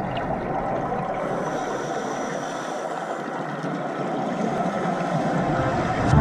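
Steady underwater rushing noise picked up by a diving camera, an even hiss with no distinct events.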